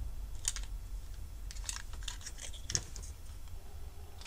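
Scattered light clicks and rustles of laser-cut clear plastic case panels and a paper sheet being handled and fitted together by hand.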